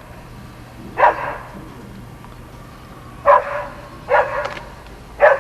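A dog barking: four short, sharp barks, each a second or two apart.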